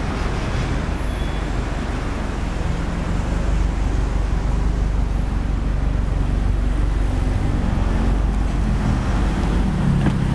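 Toyota Altezza with an HKS bolt-on turbo kit, its engine idling steadily, heard at the rear by the tailpipe: a low, even rumble that gets a little louder about three and a half seconds in.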